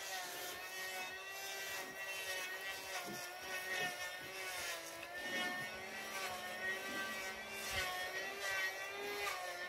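A steady engine drone, its pitch wavering slightly.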